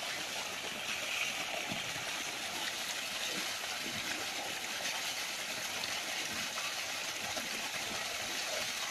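Steady rush of water gushing from a pipe outlet and splashing into a shallow dirt channel.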